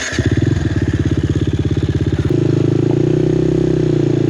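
Four-stroke enduro dirt bike engine running at low revs with a fast pulsing beat, then about two seconds in the throttle opens and it holds a higher, steadier note as the bike pulls away up a steep climb.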